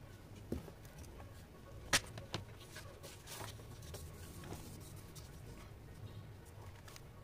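Light handling noise of small objects: scattered faint clicks and rustles, with one sharper tap about two seconds in.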